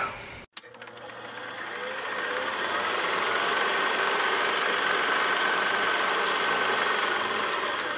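Film projector running: a fast, even mechanical clatter that fades in over the first couple of seconds and then holds steady.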